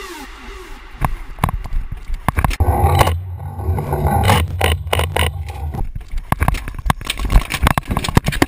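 Paintball markers firing in an exchange: a fast, irregular run of sharp pops and cracks, with a steady low hum underneath between about three and six seconds in.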